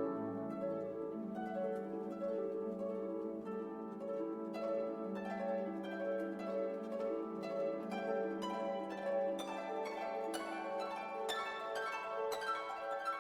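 Background music: plucked harp-like notes over sustained string chords.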